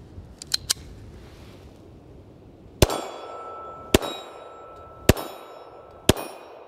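Four pistol shots about a second apart, each followed by a ringing tone, the clang of steel targets being hit. A few faint clicks come before the first shot.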